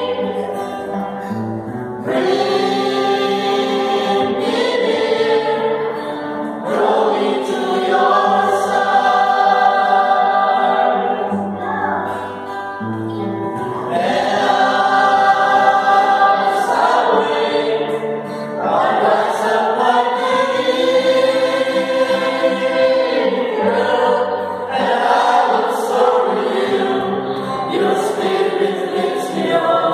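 A small mixed choir singing a hymn in phrases of a few seconds each, over held low accompaniment notes that step from one pitch to the next.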